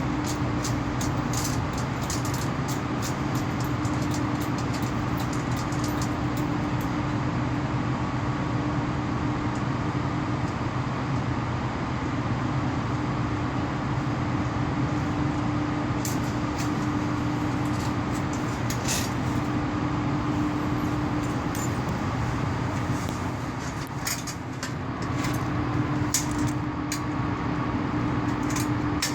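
Low-voltage MCC outgoing power cables humming loudly and steadily: a low electrical drone with a higher steady tone above it, over a noisy background with scattered faint ticks. The uploader puts the hum down to the cables vibrating against each other because the wrong cleats were used.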